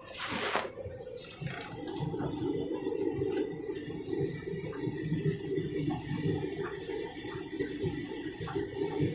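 Candy front-loading washing machine on a rinse, water sloshing in the turning drum. A brief hiss sounds in the first half second.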